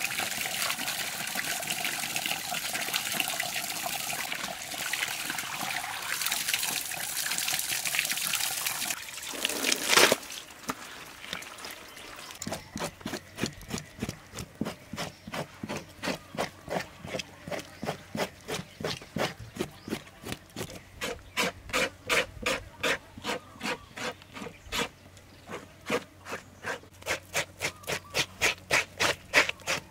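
Water runs from a tap and splashes onto raw tripe being rinsed. At about ten seconds this stops, and a metal spoon scrapes the tripe's rough inner lining in quick, even strokes, about two a second, growing louder near the end.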